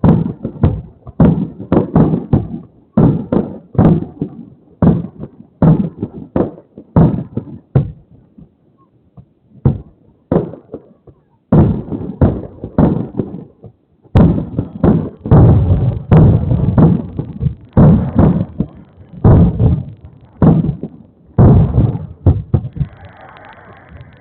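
Aerial fireworks shells bursting one after another in a long barrage of sharp booms, thinning out about a third of the way in and coming thick and fast again from the middle until shortly before the end. Heard through an outdoor security camera's small microphone.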